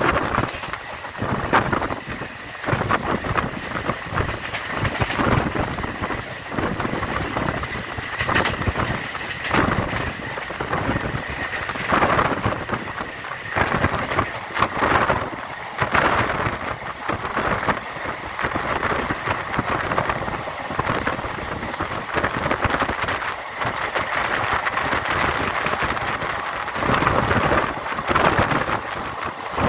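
Express passenger coach running fast, heard through an open window: wind rushing and buffeting past, over the steady rumble of the wheels on the track and frequent irregular knocks and clatter from the running gear.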